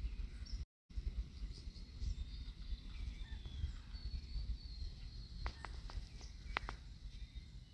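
Wind rumbling on a phone microphone outdoors, with faint bird chirps and a few sharp clicks about five and a half to seven seconds in. The audio cuts out completely for a moment just under a second in.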